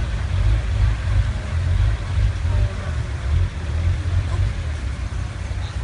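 Boat engine running steadily with a low rumble, heard from on board.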